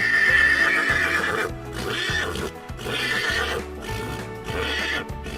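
Horse whinnying: one long neigh at the start, then three shorter ones, over background music with a steady beat.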